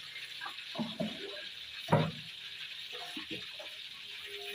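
Light clatter and knocks of things being handled and set down by hand, the loudest knock about two seconds in, over a steady hiss.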